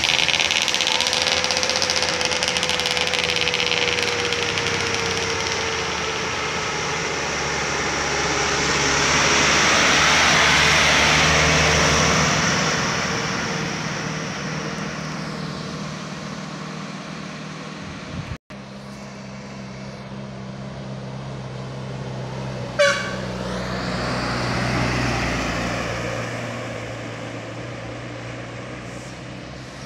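Heavy trucks loaded with sugarcane driving past on a downhill road. Their engines and tyres grow loud as each truck comes close, then fade as it moves away, and this happens twice. About two-thirds of the way through there is one brief, sharp sound.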